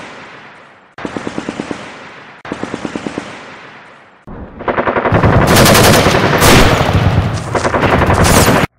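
Machine-gun fire sound effect: two short bursts of rapid shots, each trailing off in an echo, then from about four seconds in a louder, unbroken barrage of gunfire that cuts off abruptly near the end.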